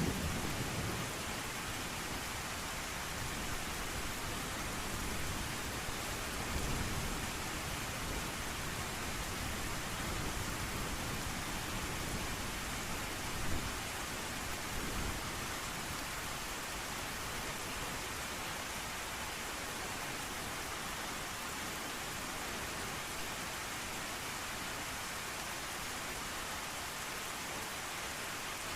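Steady heavy rain hiss, with low rolls of thunder swelling a few times in the first half.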